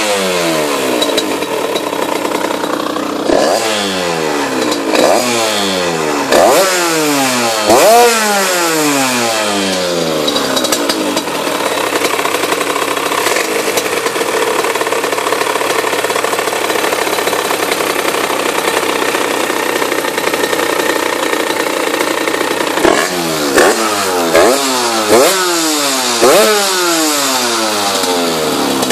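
Tuned two-stroke 50cc moped engine, a Minarelli AM6 bored out with an 86cc kit, on a Polini 28 PWK carburettor and an aftermarket expansion-chamber exhaust. It is blipped sharply several times, idles steadily for about twelve seconds, then gets a second run of quick revs near the end.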